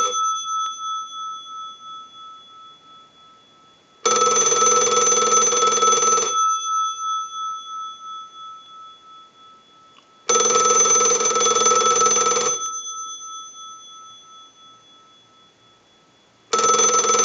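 Snoopy and Woodstock novelty telephone's bell ringer ringing on a test ring cycle, as for an incoming call: rings about two seconds long spaced about four seconds apart, the bell tone fading away in each pause. A ring is just ending at the start, two full rings follow, and another begins near the end. The rings show the phone is ringing in properly after repair.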